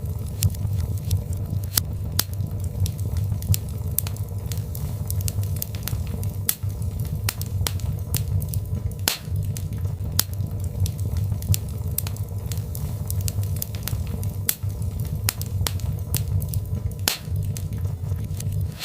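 Birch logs burning in a fireplace, crackling with irregular sharp pops, several a second, over a steady low rumble of the fire.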